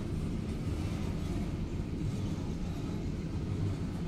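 CSX double-stack intermodal container train rolling past, a steady low rumble heard through the closed cabin of a car.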